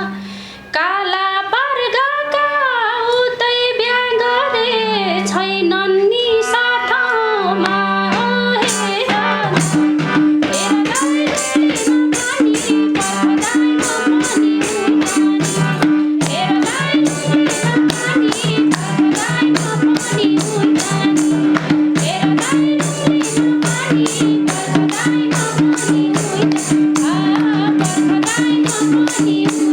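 Instrumental interlude of a Nepali dohori folk song. A melodic lead line with bending pitch plays over held bass notes, then about ten seconds in a fast, even hand-drum beat enters under sustained chords.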